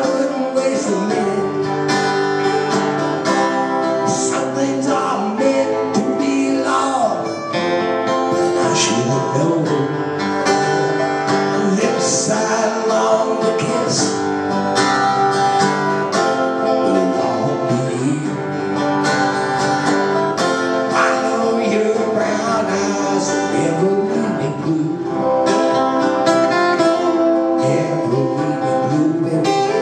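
Live acoustic guitars strummed in a country-style song with a lead vocal sung over them.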